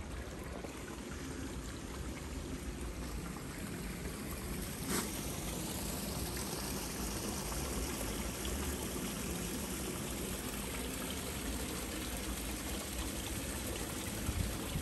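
Water from a burst water main running over the road surface and along the gutter, a steady trickling and rushing, with a single short click about five seconds in.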